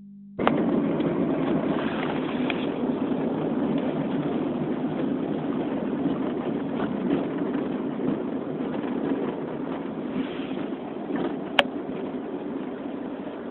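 Steady road and engine noise heard inside a moving car, with a single sharp click near the end.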